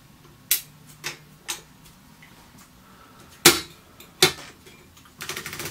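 Royal KMM manual typewriter's mechanism clicking as its ribbon spool is wound by hand with the reverse lever held: a few light clicks, two louder snaps, then a quick run of ratchet-like ticks near the end.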